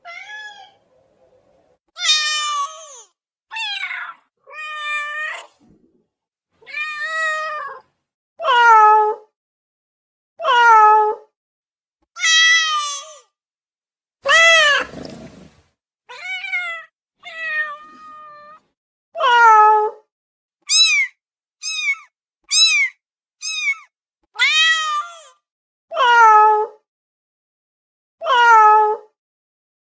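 Domestic cats meowing: a string of separate meows, each rising and falling in pitch, with short silent gaps between them. About two-thirds of the way through comes a quick run of shorter, higher meows.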